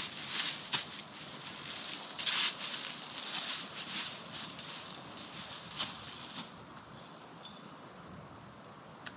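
Footsteps crunching through dry leaf litter, about one or two steps a second, stopping about two-thirds of the way through. Only a faint steady hiss of outdoor background remains after that.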